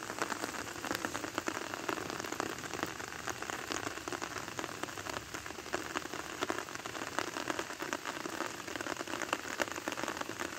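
Rain pattering steadily: a dense, even crackle of many small drops with no change through the whole stretch.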